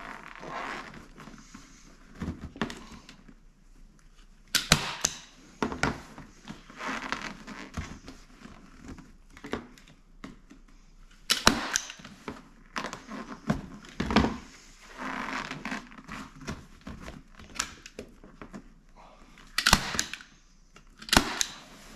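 Manual upholstery staple gun firing staples into a seat base board, sharp snaps every few seconds, with rustling of the vinyl cover being pulled tight between shots.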